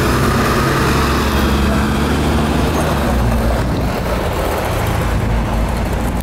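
Isuzu Erga Type-B non-step city bus's V8 diesel engine running steadily under load as the bus pulls past close by and drives off.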